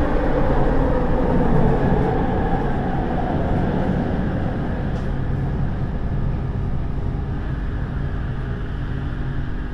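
Running noise inside a RapidKL LRT train car as it slows into a station: a steady rumble with a motor whine that drifts down in pitch over the first few seconds and slowly gets quieter.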